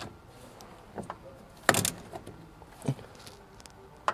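Tools and parts being handled during an oil filter change: a few separate clicks and knocks, the loudest about two seconds in.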